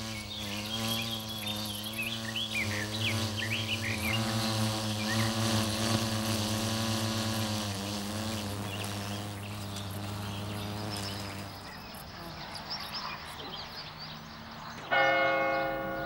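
Paper wasps buzzing in flight around their nest, a steady droning hum that wavers slightly in pitch, with small birds chirping in the first few seconds. The buzz fades out after about twelve seconds, and a church bell starts ringing near the end.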